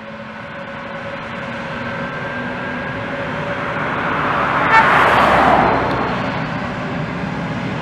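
Airbus A320neo's Pratt & Whitney PW1100G geared turbofans running as the jet passes close by on the runway: a jet rush with a steady whine swells to its loudest a little past halfway, then eases slightly.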